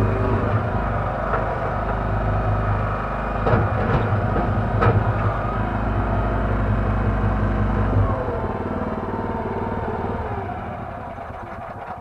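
Kellfri towable mini backhoe's engine running steadily under hydraulic load while the bucket works through Himalayan balsam, with a few sharp clicks midway. About eight seconds in, the deep engine hum drops away and it runs on lighter.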